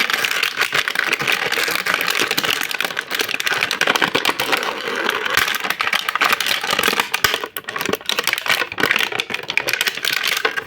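Plastic toy packaging being handled as an action figure is worked out of its box: a continuous run of rapid plastic clicking, crackling and rattling, easing briefly about seven seconds in.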